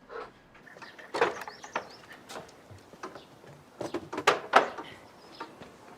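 A series of irregular knocks and clatters over a low background hiss, loudest about four seconds in.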